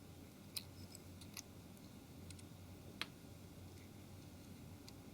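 Faint, scattered light clicks of small phone parts and a tool being handled as the earpiece housing is taken off a Nokia 701, the loudest click about three seconds in.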